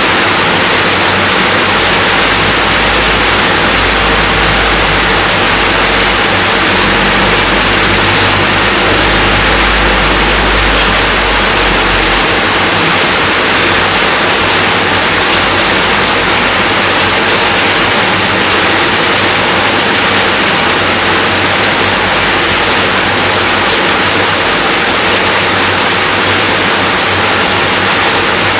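Steady, heavy rainfall, an even hiss, with a low rumble underneath that fades out about twelve seconds in.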